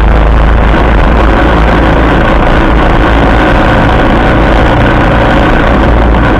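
All-terrain vehicle (ATV) engine running steadily under the rider as it travels a dirt trail, very loud on the recording.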